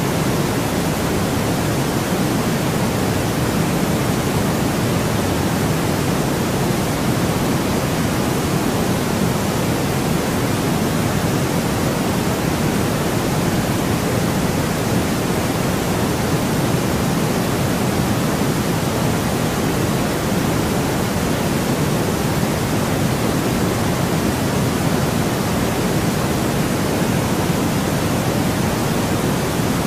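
Steady, unchanging white noise, weighted toward the low end so that it sounds like a deep, soft hiss.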